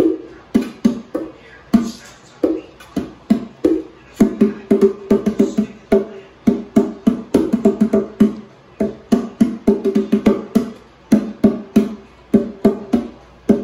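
Pair of hand-played bongo drums struck in rapid, uneven strikes, each hit ringing briefly with a pitched drum tone, as a person's hands play the larger drum and a Pomeranian puppy paws at the smaller one.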